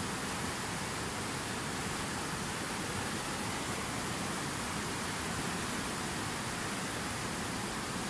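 Fast mountain river rushing over rocks in white-water rapids: a steady, unbroken sound of churning water.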